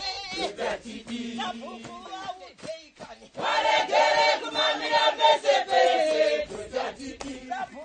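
A group of villagers singing together as they dance, quieter and more scattered at first, then the whole group singing loudly together from about three seconds in.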